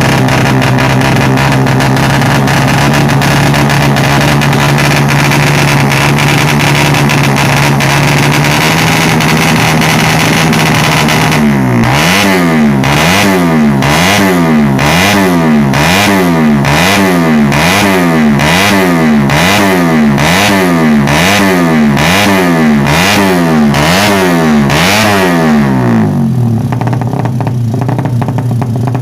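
Suzuki Satria FU's ported 155 single-cylinder four-stroke engine warming up. It holds a steady fast idle, then is revved up and let fall back about once a second for some fourteen seconds before settling back to idle.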